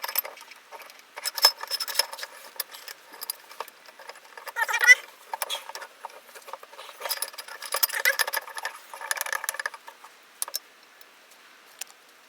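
Metal vise parts being handled and fitted back together: a scatter of light clinks, taps and knocks, metal on metal, with a short rising grating sound about five seconds in.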